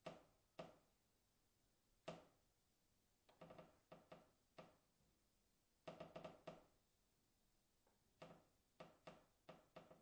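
Faint, distant wooden beam creaking: a run of short, sharp cracks and knocks, some coming singly and some in quick clusters of three or four, each with a brief ringing tail.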